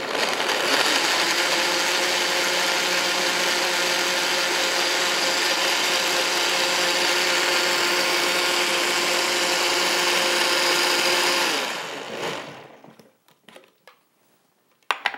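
Countertop blender running at a steady speed, blending kale into a frozen-blueberry fruit smoothie. The motor is switched off about twelve seconds in and spins down. A few light clicks and knocks follow as the lid is taken off.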